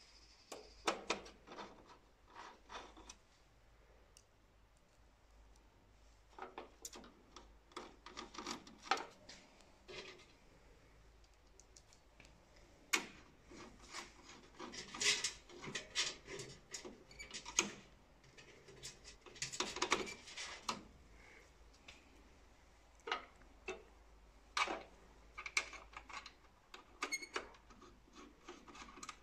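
A screwdriver working small screws in and out of the metal frame of an Océ PlotWave 300 scanner, with irregular clicks, scrapes and rubbing as screws and small parts are handled.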